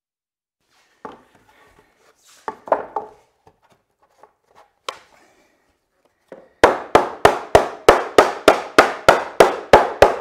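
Hammer blows on pressure-treated timber, a fast even run of about four strikes a second, knocking a half-lap joint of a picnic table's X-frame leg together. Before them come a few scattered knocks and scrapes as the wooden boards are set in place.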